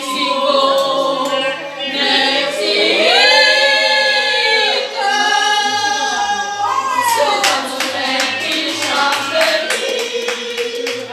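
A small group of women singing together into a microphone, holding long notes. Rhythmic hand-clapping joins in about halfway through.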